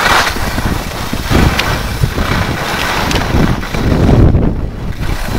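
Wind buffeting the microphone of a handheld camera carried by a skier going downhill: a loud, gusting rumble that swells and eases.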